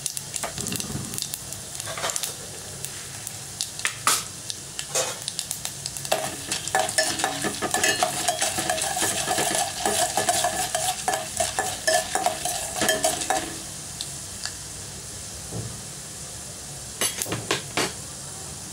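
Mustard seeds, cumin and lentils crackling and sizzling in hot oil in a stainless steel pot. From about six seconds in to about thirteen seconds a spoon stirs them, scraping against the pot with a ringing tone. A few sharp clicks come near the end.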